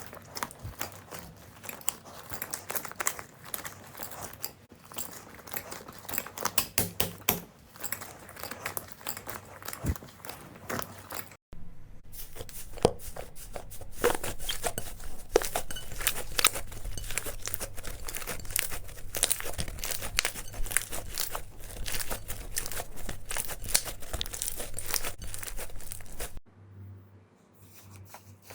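Slime being handled by hand, with dense crackling and popping. The sound breaks off for a moment about 11 seconds in, then carries on, and goes quieter near the end.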